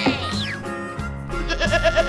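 Cartoon sheep bleating, a quavering baa that starts about two-thirds of the way in, over background children's music. A quick falling swoop sound effect comes at the very start.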